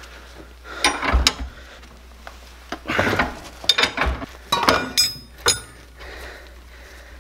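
Metal clinking and rattling from hand work on a Bobcat 825 skid steer's hydraulic cylinder held in a vise, as its packing nut is loosened and worked off the rod. Several sharp, ringing clinks come in a cluster from about three and a half to five and a half seconds in.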